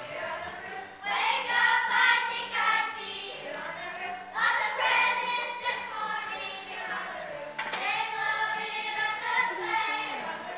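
Children's choir singing, in phrases a few seconds long with short breaks between them.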